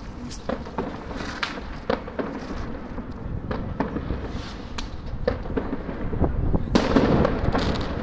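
Fireworks going off at irregular intervals, sharp bangs and pops, with a louder, denser run of bangs near the end.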